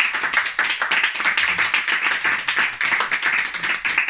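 Small audience clapping by hand: a dense, steady run of claps at the end of a song.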